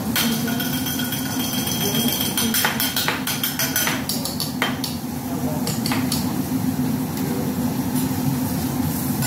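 Teppanyaki chef's metal spatula and knife tapping, clacking and scraping on the steel flat-top griddle, with a flurry of quick clicks in the middle, over a steady low hum.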